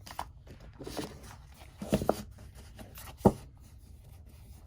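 Oracle cards and their box being handled: soft rustling with a few light knocks, the sharpest about three seconds in.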